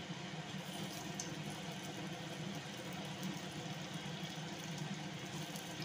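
Meal-maker (soya chunk) cutlet deep-frying in hot oil on a low flame: a steady sizzle with fine crackling. The crackling picks up about half a second in.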